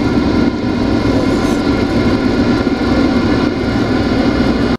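Jet airliner cabin noise during the climb after takeoff: the engines' steady roar heard from a window seat, with several steady hum tones riding on it.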